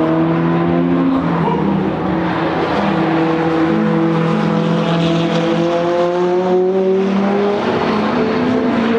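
McLaren 570S twin-turbo V8 engines running hard at speed, the engine note climbing slowly in pitch through the revs, with a brief break about six and a half seconds in before it climbs again.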